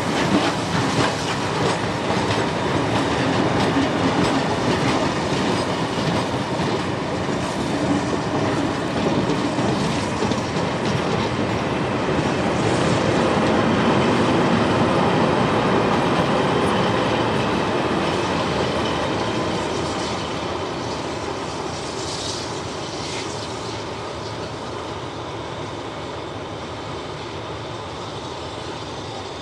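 Vintage passenger carriages rolling past on steel rails, their wheels clicking over the rail joints with a steady rumble. The sound builds toward the middle, then fades as the train draws away.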